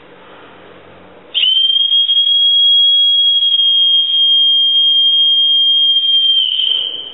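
A whistle blown in one long, shrill, steady note that starts abruptly, holds for about five seconds and sags slightly in pitch as it fades near the end.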